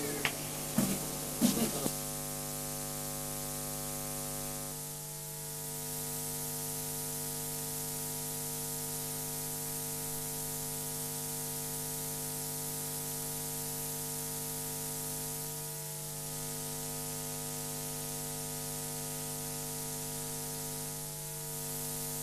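Steady electrical mains hum with a hiss, from the sound system, with a few faint knocks in the first two seconds.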